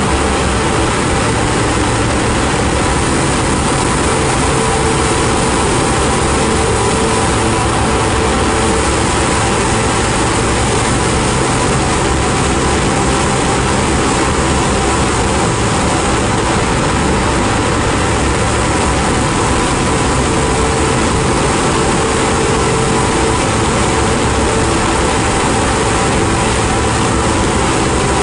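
Ambient noise-drone music: a dense, steady wall of hiss and rumble with faint held tones inside it, and no beat.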